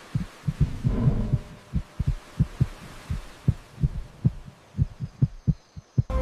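A series of short, deep thumps, about four a second in an uneven, heartbeat-like rhythm, cutting off suddenly near the end.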